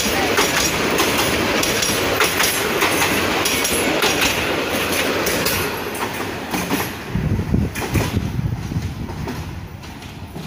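Bangladesh Railway commuter train passing close by, its coach wheels clacking over the rail joints. About six seconds in, the sound turns to a lower rumble that fades as the last coach moves away.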